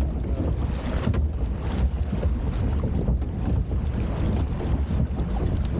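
Wind rumbling on the microphone over rushing, splashing water as a log flume boat rides along its water channel, with a brief splash about a second in.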